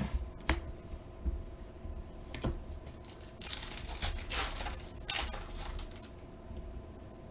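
Foil wrapper of a trading-card pack being torn open and crinkled, in two rustling bursts about three and a half and five seconds in. Before them come a few light clicks.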